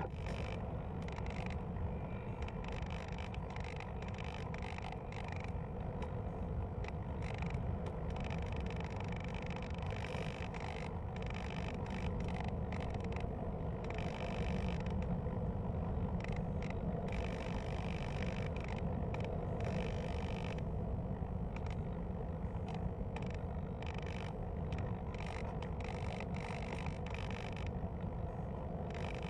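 Wind rushing over the onboard camera's microphone on a Hobbyking Cloud Surfer RC plane in flight. Under it is a faint, steady whine from its electric motor, which is throttled back.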